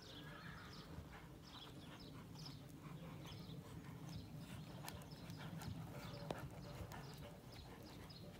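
Faint, muffled hoofbeats of a horse cantering on a sand arena surface, with one sharp click about six seconds in.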